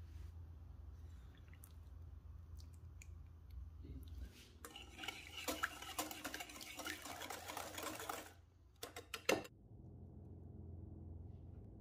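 A utensil beating ingredients in a mixing bowl: a rapid run of clicking, scraping strokes against the bowl for about three and a half seconds, followed by a few sharp taps on the bowl.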